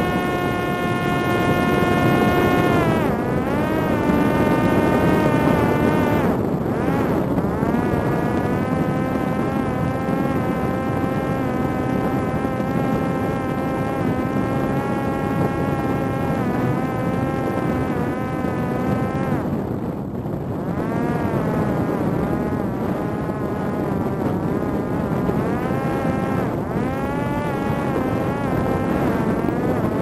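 Parrot Disco drone's electric motor and pusher propeller whining in flight, with a rush of wind over the airframe. The whine's pitch drops and climbs back about four times as the throttle is eased off and reapplied.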